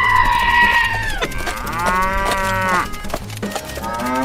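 Three drawn-out mooing calls like cattle, the last rising in pitch near the end, over background music with a steady beat.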